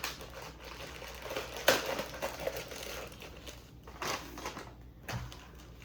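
Paper and cardboard fast-food packaging being handled and opened: rustling and crinkling with scattered clicks, and one sharp click a little under two seconds in.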